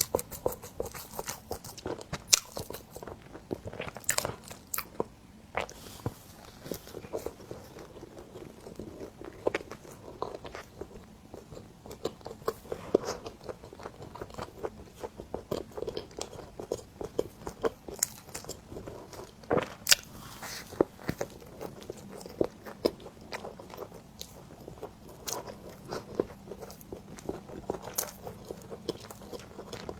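Close-miked eating sounds of cream bread being bitten and chewed: soft bites and chewing with many sharp, irregular mouth clicks and smacks, the loudest about 20 seconds in.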